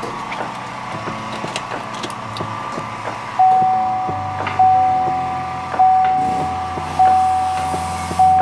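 Chevrolet Silverado's dash warning chime sounding a single ding about every 1.2 seconds, starting a few seconds in. Under it are a steady hum and a few light clicks of dash parts being handled.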